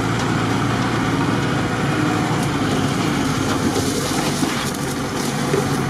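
An off-road 4x4's engine running steadily at low speed as the vehicle crawls along an overgrown forest track. From about three and a half seconds in, branches and leaves scrape and swish against the body and windshield.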